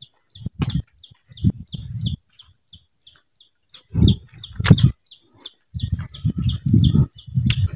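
A steady string of short high chirps, about four a second, over a thin, steady high-pitched drone: forest birds and insects. Irregular low thumps and rumbles come in bunches, the loudest about four seconds in and again near the end.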